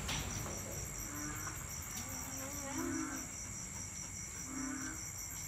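Night insects chirping in a fast, even pulse, with short low calls about every second and a half.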